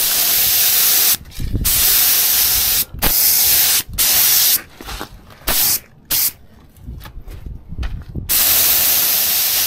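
Paint spray gun spraying primer: a loud hiss switched on and off in a string of trigger pulls of about half a second to a second and a half, with short gaps, and a longer pull near the end.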